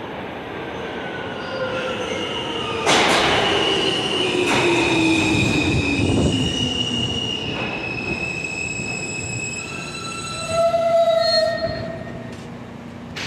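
New York City subway F train of R160 cars pulling into a station and braking to a stop. Its traction motors whine down in pitch while the steel wheels and brakes squeal in several high tones, with a louder squeal about ten seconds in as it stops.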